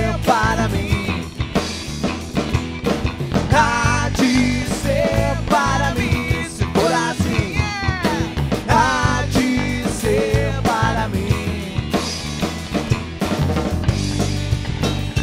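A rock band playing live: drum kit, bass guitar and acoustic guitar. For roughly the first ten seconds the singer belts wordless vocals over it, then the instruments carry on alone.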